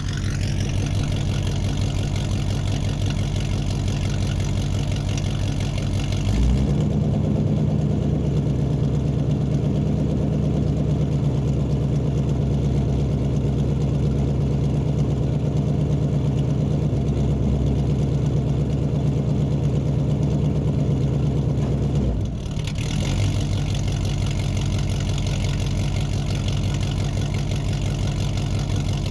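A vehicle engine running steadily. About six seconds in it changes to a deeper, stronger note, and it returns to the earlier note at around twenty-two seconds.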